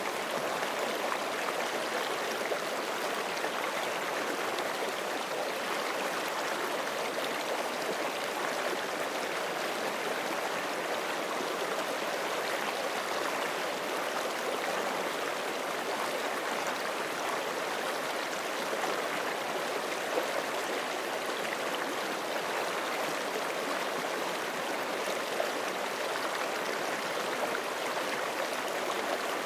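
Forest creek flowing in a steady rush over rocks, with small gurgles and splashes.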